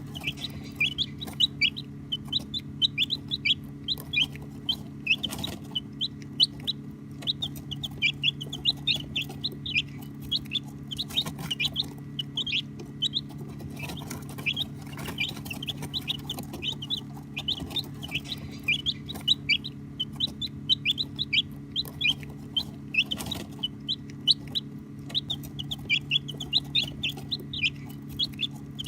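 Baby chicks peeping constantly, many short high chirps overlapping one another, over a steady low hum.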